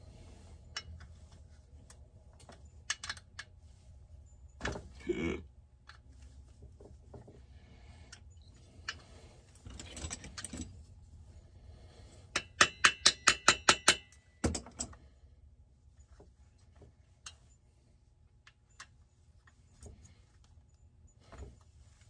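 A small hammer tapping quickly, about eight sharp strikes in under two seconds about halfway through, then one more knock. Around it, small metal parts and tools clink and click as they are handled.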